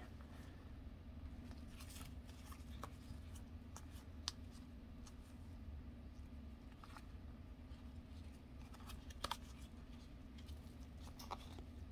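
Faint handling of trading cards: gloved hands slide cards one at a time through a stack, giving soft slides and scattered sharp clicks of card stock. A few clicks stand out, about 4 s and 9 s in and near the end. A low, steady hum runs underneath.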